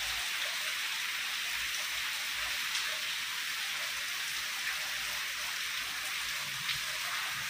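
Heavy rain falling in a steady hiss, with a few sharper drop hits.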